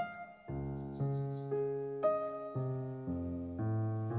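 Background music: a piano melody over a bass line, with a new note struck about every half second.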